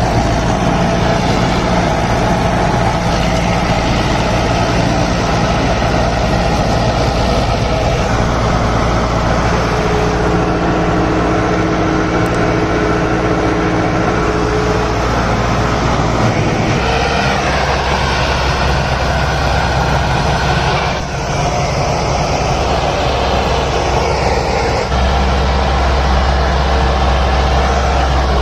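Standard DI 460 tractor's diesel engine running steadily under load while driving a super seeder through cotton stalks in first medium gear. Its note changes about halfway through and again near the end.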